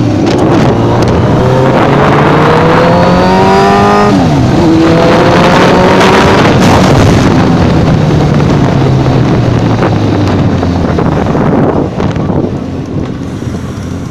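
Heavy motorcycle engine heard from the pillion seat, accelerating hard with its pitch rising through the gears. There is a gear change about four seconds in, a second climb, then it holds and eases off near the end, all under a steady rush of noise.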